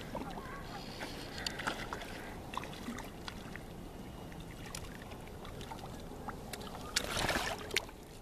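Water sloshing and lapping up close while a hooked rainbow trout is played in on a fly rod, with scattered small clicks and knocks and a short burst of splashing about seven seconds in.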